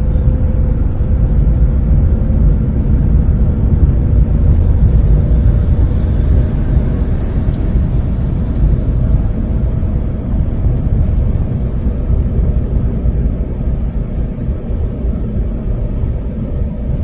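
Steady low engine and tyre rumble of a car driving along a city street, heard from inside the cabin, with a faint steady drone.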